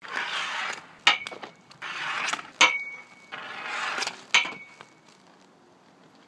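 Three wrist shots with a Reebok 4k composite hockey stick on an inline rink: each time a rolling hiss of skate wheels and puck on the plastic court, then a sharp crack as the blade strikes the puck, followed by a brief ringing tone. The three shots come about a second and a half apart, and it goes faint after the third.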